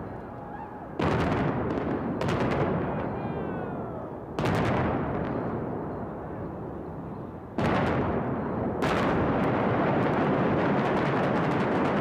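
Pyrotechnic fireballs and explosive demolition charges going off in a series of heavy booms, about one, two, four and a half and seven and a half seconds in, each rolling into a long rumble that becomes continuous over the last few seconds. A brief falling whistle sounds about three seconds in.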